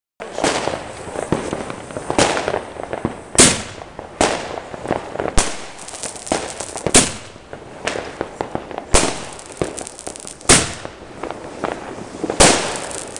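36-shot bombette battery (WECO Gladiator) firing at night: about nine loud bangs, one every second or two, as the shells launch and burst, with crackling between the bangs.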